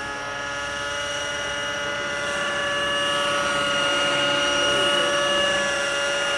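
Nitro-powered radio-controlled model helicopters flying overhead, their glow engines and rotors making a steady high whine that swells a little around the middle.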